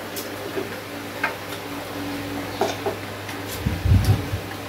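Chopsticks tapping and scraping against small porcelain rice bowls as people eat: scattered light clicks over a steady low hum. A dull low thump about four seconds in is the loudest sound.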